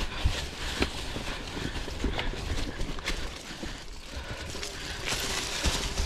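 Mountain bike riding over a leaf-covered dirt trail: tyres crunching through dry leaves, with irregular knocks and rattles from the bike over roots and rocks, and a brief louder rush of hiss near the end.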